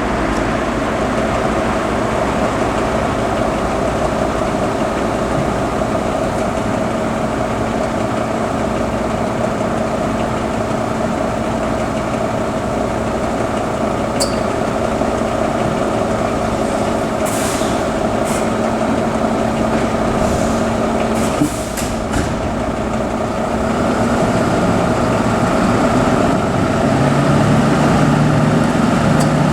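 German fire trucks' diesel engines running steadily at idle, with a short hiss of air about halfway through. Near the end the sound grows louder as a lower engine note comes in.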